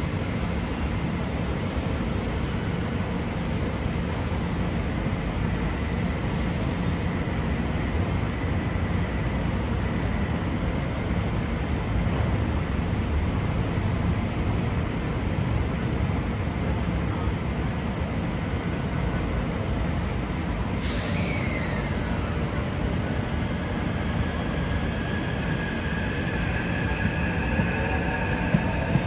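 Taipei Metro electric trains standing at an elevated platform, with a steady low rumble of running equipment throughout. About two-thirds through comes a short burst of hiss, and over the last few seconds a rising electric motor whine as one train starts to pull out.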